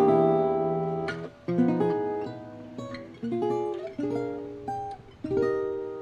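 Solo Selmer-Maccaferri-style gypsy jazz guitar with an oval soundhole, played freely without a steady beat. A chord rings out and fades over the first second or so, then a string of picked chords and notes follows at uneven intervals, each left to ring.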